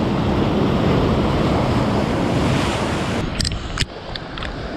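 Sea wave surging and breaking over shore rocks, with wind buffeting the microphone. About three seconds in the rush drops away and a few sharp knocks and clatters follow, as the wave knocks over a tripod stand on the rocks.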